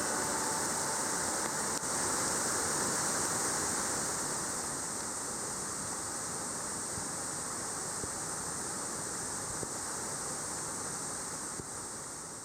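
Waterfall of about 13 m pouring heavily, its flow swollen by days of heavy rain: a steady, even rush of falling water that eases down gradually and fades near the end.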